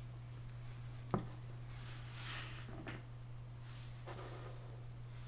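Faint handling noise from cotton-gloved hands on a small vinyl figure: a light click about a second in, then soft rubbing and rustling. A steady low hum runs underneath.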